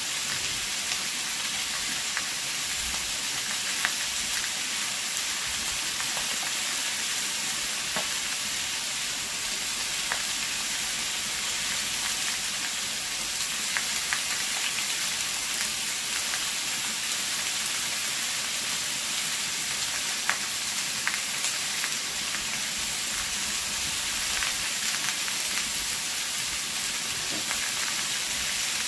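Chicken pieces and onion sautéing in oil in a pan, a steady sizzle with scattered clicks of a utensil stirring against the pan.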